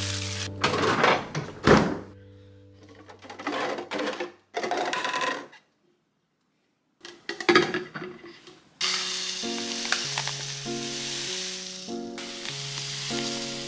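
Light background music, with thunks and clatter of things being handled in a kitchen. The music drops out for a few seconds midway, with a brief complete silence, then returns with a simple repeating melody.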